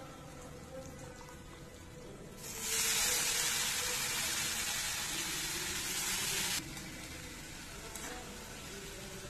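Shredded cabbage sizzling in hot oil and tempering in a steel kadhai: a loud hiss that starts about two and a half seconds in and cuts off abruptly about four seconds later, over soft background music.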